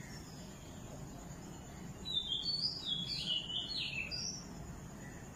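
Battered potato slices deep-frying in oil on low-medium heat, a soft steady sizzle. A bird chirps over it, a quick run of short notes from about two seconds in.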